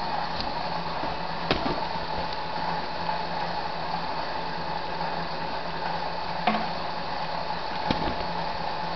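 HHO gas from a running dry-cell generator bubbling steadily through the liquid in the bubbler jugs, over a steady machine hum, with a few light clicks and knocks as the hoses and bottles are handled.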